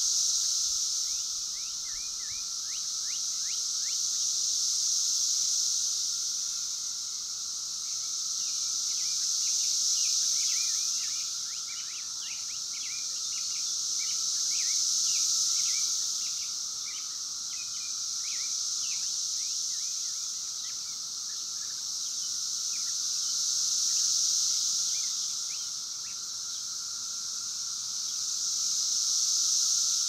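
A chorus of Brood X 17-year periodical cicadas. A high, piercing buzz swells and fades in waves about every five seconds over a steady lower drone.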